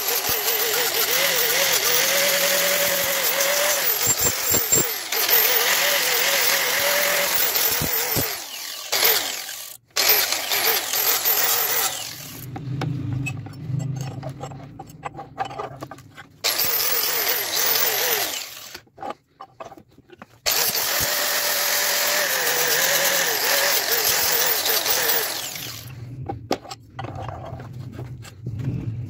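Angle grinder grinding the steel of a cleaver blade clamped in a vise, its motor pitch wavering as it bears on the metal. It stops twice for a few seconds, leaving low rumble and light knocks, and grinds again in between.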